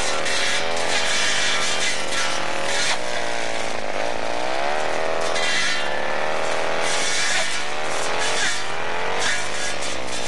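Petrol brush cutter running, its engine pitch repeatedly rising and falling as it is swung through grass and scrub, with recurring swells of hiss.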